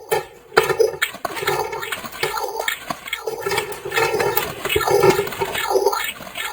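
A voice so warped by audio effects that no words can be made out, with a sweeping, warbling distortion that pulses about once or twice a second.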